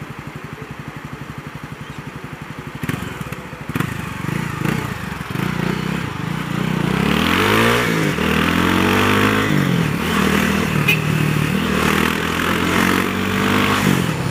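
Honda CB300R's single-cylinder engine idling at a standstill, then pulling away about three seconds in and revving up in rising sweeps, its pitch dropping back at each gear change.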